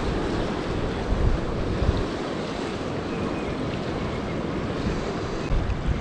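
High, muddy creek in flood rushing steadily, with wind buffeting the microphone in low gusts about one and two seconds in.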